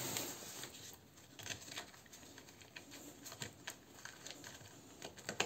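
Faint handling noise from fitting a screw into a homemade cardboard panel and arranging cables: a brief rub at the start, then scattered light ticks and clicks, with a sharper click near the end.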